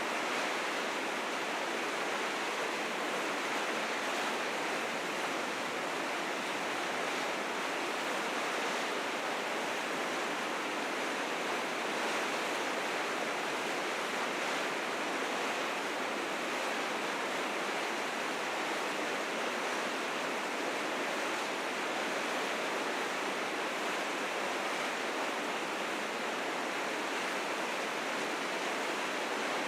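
River rapids rushing steadily, the current running high and fierce with spring snowmelt.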